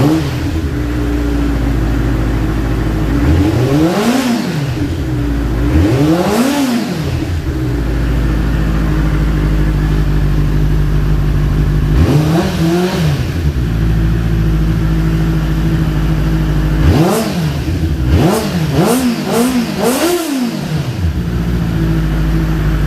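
Benelli TNT 600i's inline-four engine through its stock exhaust, idling and revved in short throttle blips that rise and fall back to idle. There are single revs early on, then a quick run of about four blips near the end.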